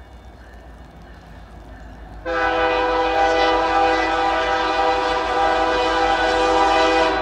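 An Ontario Northland diesel locomotive's air horn sounds one long blast of several notes at once. It starts abruptly a little over two seconds in, holds steady for about five seconds and cuts off just before the end. A faint low rumble comes before it.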